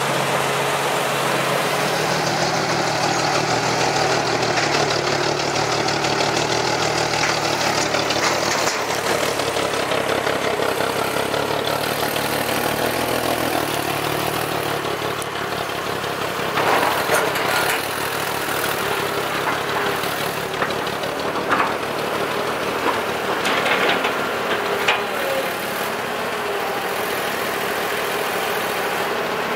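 Diesel engine of a loaded six-wheel dump truck running under load as it pulls through mud, its pitch shifting a few times as the revs change, with a few short knocks in the second half.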